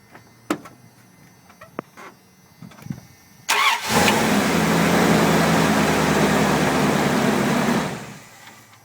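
A 1994 Dodge Dakota's engine, after a few light clicks, cranks briefly and catches about three and a half seconds in, then runs steadily for about four seconds before dying away near the end. It starts now that the burnt wire that left it with no spark has been spliced.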